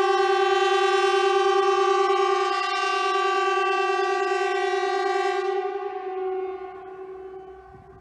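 Norwegian Civil Defence air-raid siren sounding during a test: one steady held tone with many overtones, fading away over the last couple of seconds.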